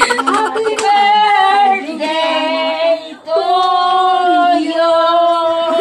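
Singing in long held notes, with short breaks about two and three seconds in.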